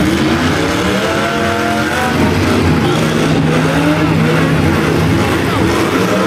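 Demolition derby cars' engines revving and running. One climbs in pitch over the first two seconds, then holds a steady drone.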